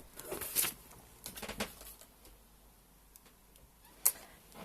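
Light handling noises of small objects: a few soft taps and rustles in the first two seconds, then one sharp click about four seconds in.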